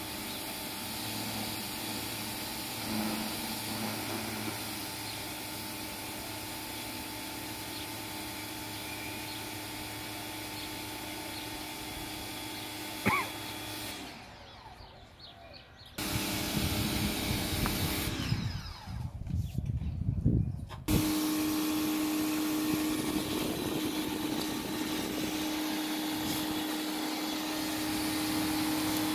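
Pressure washer running steadily as its wand sprays. About halfway through the sound briefly drops out, then a few seconds of rumbling and buffeting, and the machine's steady hum comes back slightly louder.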